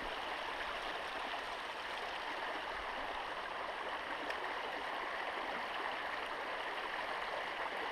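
Small creek running over rocks: a steady, even rush of flowing water.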